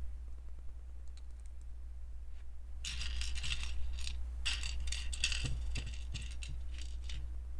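Small plastic LEGO pieces clicking and clattering against each other as they are handled, faint at first, then in dense clusters from about three seconds in. A steady low hum runs underneath.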